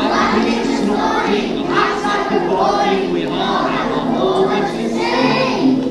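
A group of children singing together over musical accompaniment.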